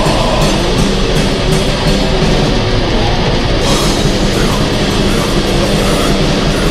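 Loud, dense heavy metal: distorted electric guitars and a drum kit playing without a break.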